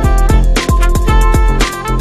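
Instrumental music with a steady drum beat, deep bass and a melodic line.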